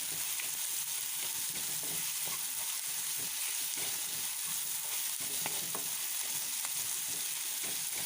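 Chopped onion, capsicum, garlic and ginger sizzling steadily in hot oil in a pan as they are stirred, with scattered light knocks and scrapes of the stirring.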